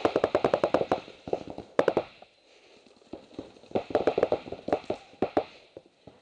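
Paintball markers firing rapid strings of shots, about ten a second, in two long bursts with a pause of about a second in the middle.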